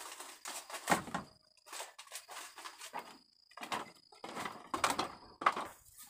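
Irregular wooden knocks, creaks and rustling as someone moves about a bamboo hut and its doorway with a woven bamboo back basket; the sharpest knocks come about a second in and near the end.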